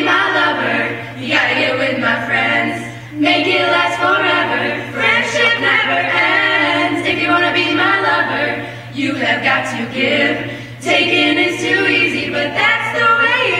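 A group of young women singing together a cappella into microphones, in sung phrases with short breaks between them. A steady low electrical hum runs underneath.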